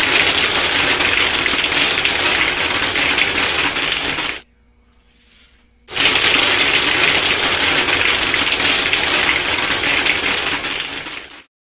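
Compressed air blasting through the blowgun of a homemade soda-bottle airsoft machine gun, firing pellets in two long bursts, with a pause of about a second and a half about four seconds in.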